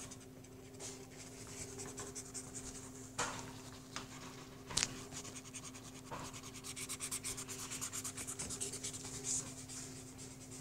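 A pink felt-tip marker rubbing quickly back and forth on colouring-book paper, faint scribbling strokes that grow denser in the second half. A couple of light knocks come in the first half, over a low steady hum.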